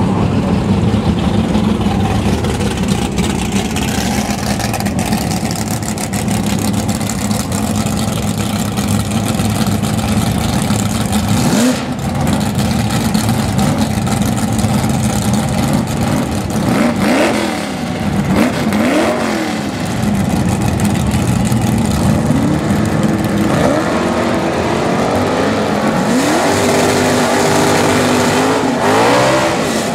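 Naturally aspirated V8 drag cars at full throttle. First a car runs down the strip; then a pair revs up and down at the start line and launches, their engines climbing in pitch in steps through the gears near the end.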